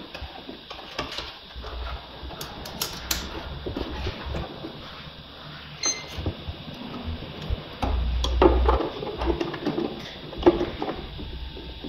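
Hands working inside a stripped VW Polo rear door, handling its plastic and metal parts: irregular clicks, knocks and rattles, with a busier, louder stretch of handling about eight seconds in.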